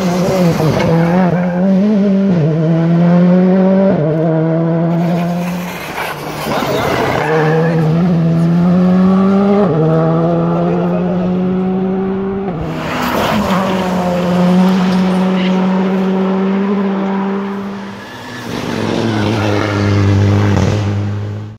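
Rally cars accelerating hard past, engines revving up and dropping in pitch at each quick upshift, several passes in a row. A lower steady drone takes over near the end.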